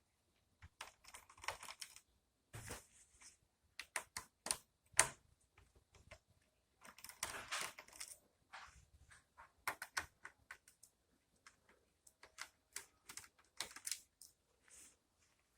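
Faint, irregular clicks, taps and brief scrapes of plastic laptop case parts and tools being handled during disassembly.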